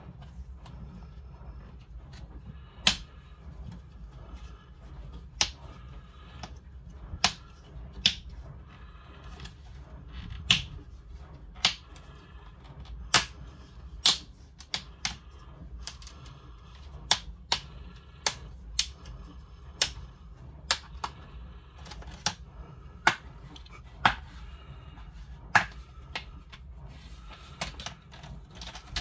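Sharp, irregular clicks and snaps from hands working on a Chromebook laptop's plastic case during a screen replacement, about twenty over the span, some much louder than others.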